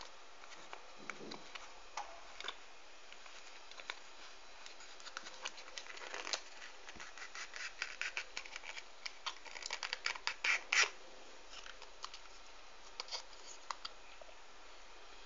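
A small cardboard box being handled and opened: scratching, rustling and light clicks of card and fingernails as a small tin is slid out of its sleeve. The handling is sparse at first and busiest in the middle, with the loudest scratches just before the end of that stretch.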